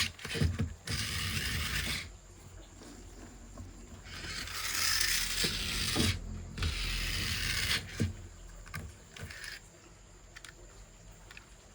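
Three long rasping scrapes with a few light knocks between them, then quieter rubbing and handling noise for the last few seconds.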